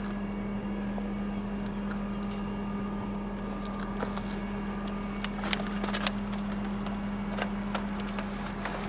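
Crane truck's engine running steadily with an even hum, with scattered light clicks and knocks over it.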